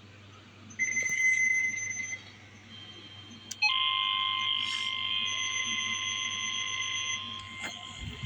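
A weather radio's speaker sounds the National Weather Service weekly-test warning alarm: a steady, unwavering alarm tone that starts abruptly about three and a half seconds in. A shorter high tone comes first, about a second in, over faint hiss and hum.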